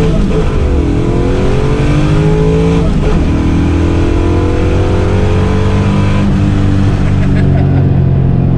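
Carbureted pushrod small-block V8 of a Fox-body Mustang drag car, heard from inside the cabin, accelerating through the gears. The engine pitch drops at an upshift right at the start and again about three seconds in, then climbs slowly and levels off to a steady cruise.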